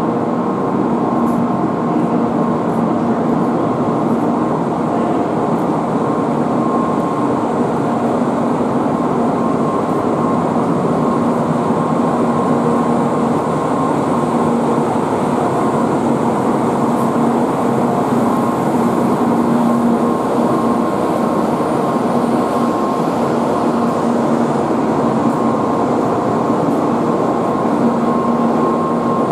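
Kyushu Shinkansen Sakura train standing at the platform, its on-board equipment humming steadily: a constant noise with a few fixed tones that keep the same pitch throughout.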